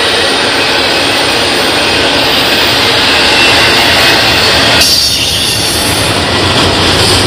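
Double-stack intermodal freight train rolling past close by: loud, steady rumble and rattle of the loaded well cars' wheels on the rails. The noise shifts briefly about five seconds in.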